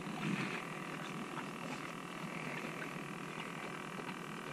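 A chorus of frogs calling steadily, with louder patches of calling every second or so.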